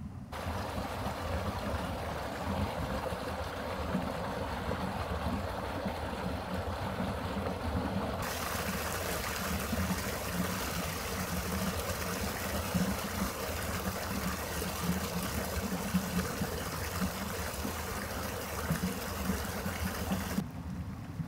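Stream water rushing and splashing over rocks, a steady noise; about eight seconds in it turns brighter and hissier.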